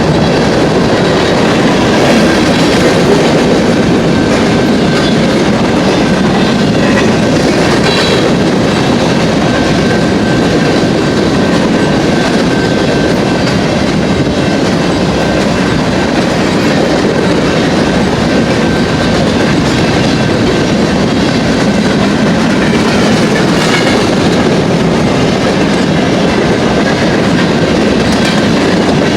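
Empty covered-hopper grain cars of a BNSF freight train rolling past, steel wheels running on the rails with a steady noise and a clickety-clack over the joints.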